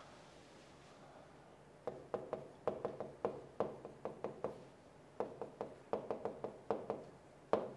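A pen tapping and knocking against the glass face of an electronic whiteboard as characters are written: an irregular run of short knocks, several a second, each with a brief ringing tone. They start about two seconds in, and the last one is the loudest.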